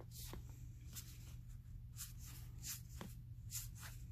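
Baseball trading cards being thumbed through by hand: a quick, irregular series of short, soft papery swishes as each cardstock card slides off the stack, about two or three a second. A steady low hum runs underneath.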